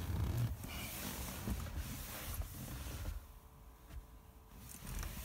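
Rustling and rubbing handling noise from a phone being moved around inside a car, with a low rumble; it quietens about three seconds in and picks up again near the end.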